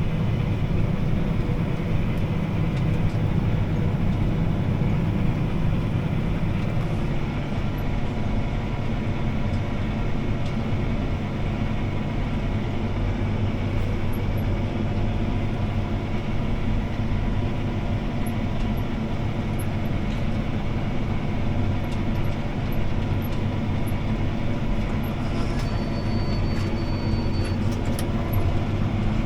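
CLAAS ARION 650 tractor's engine running steadily under load while pulling a disc harrow, heard from inside the cab. A faint high steady tone sounds for about two seconds near the end.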